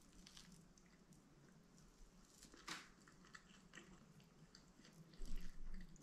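Quiet sounds of eating with the hands: injera being torn and food picked from a foam takeaway box, small crackles and clicks. There is one sharper crackle a little under three seconds in, and a short burst of low bumps near the end.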